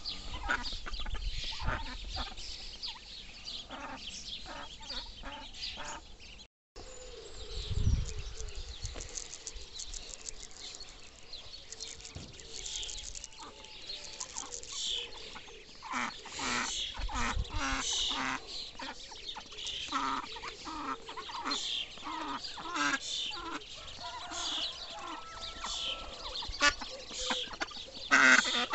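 Ducks and ducklings calling as they feed: a stream of short, high peeps with some lower quacks mixed in.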